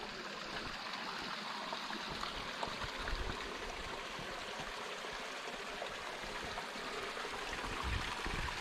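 A small stream running steadily, a continuous rushing hiss of water.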